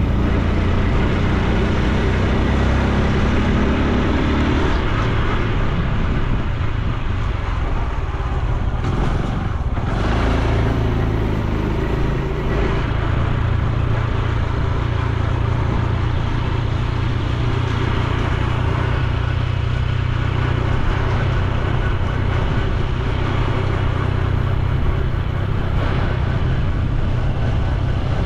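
Honda Super Cub C125's single-cylinder engine and exhaust running while riding, under rushing road and wind noise. The engine note rises over the first few seconds, breaks briefly about nine to ten seconds in, then holds steady.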